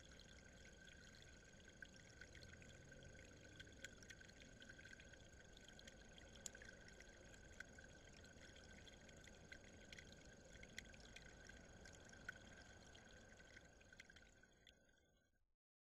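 Faint trickle of water running over a rock, with a steady high whine and scattered small clicks over it; it fades out shortly before the end.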